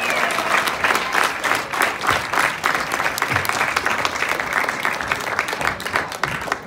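Audience applauding, many hands clapping densely together, the applause gradually easing off near the end.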